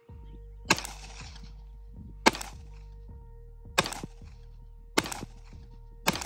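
Five single shots from a ported custom 2011 9mm pistol firing hand-loaded 115-grain rounds, spaced about a second to a second and a half apart. Background music plays underneath.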